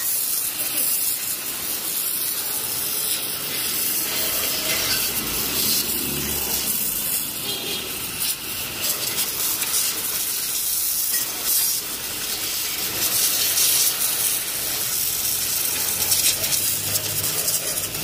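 High-pressure water blaster spraying a motorcycle chassis to strip it before powder coating: a steady, unbroken hiss of the jet.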